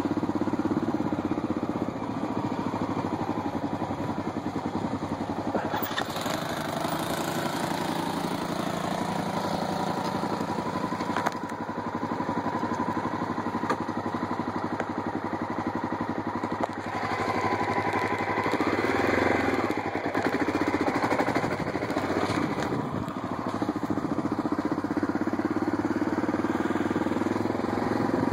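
Off-road vehicle's small engine running steadily as it rides a dirt trail, its pitch rising and falling with the throttle about two-thirds of the way through, with a few sharp knocks near the start.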